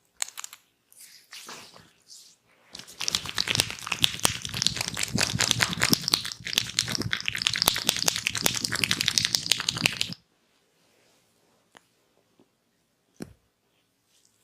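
Dense, close-miked crackling and rustling from rubbing on the head, with many fine clicks. It follows a few softer rustles, runs for about seven seconds and stops abruptly. A single sharp click comes near the end.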